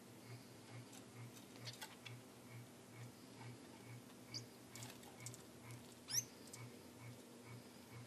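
Caged pet finches calling faintly: a few short high chirps, the loudest a quick rising chirp about six seconds in, with light clicks of birds moving about the cage. Underneath is a faint low hum that pulses about two and a half times a second.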